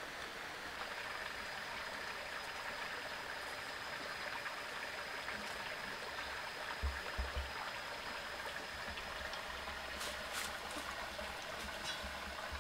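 Steady rush of a shallow stream running over rocks, with a few low thumps about seven seconds in.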